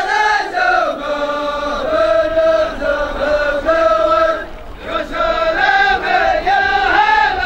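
Male voice chanting a sung poem in long held notes that step up and down in pitch, with a brief break about four and a half seconds in.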